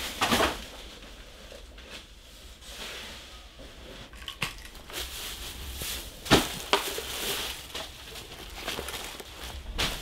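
Rustling and crinkling of trash, paper and plastic being handled and shifted, broken by scattered clicks and a few sharp knocks, the loudest about six seconds in.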